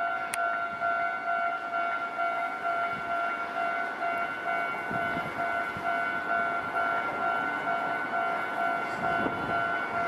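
Japanese railway level-crossing alarm ringing steadily, its electronic warning tone repeating over a haze of noise.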